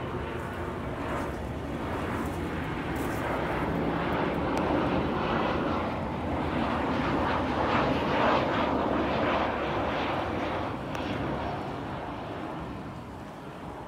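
Airplane passing overhead: a steady engine rush that swells to its loudest just past the middle, then fades away near the end.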